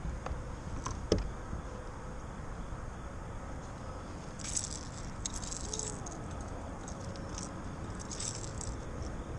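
A sharp knock about a second in, then a small hard fishing lure rattling and its hooks jangling in quick, high clusters from about four to nine seconds in, as the lure is handled at the rod.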